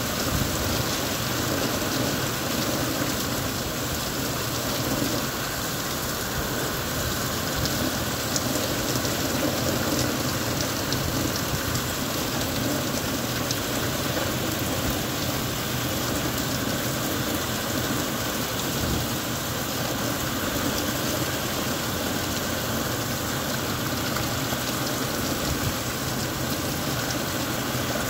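Heavy rain pouring steadily onto pavement and puddles, a dense, even hiss of falling water.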